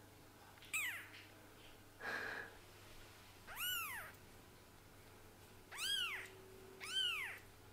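A very young kitten, its eyes just opened, mewing four times: thin, high-pitched mews that each rise and then fall in pitch. About two seconds in there is a short breathy noise.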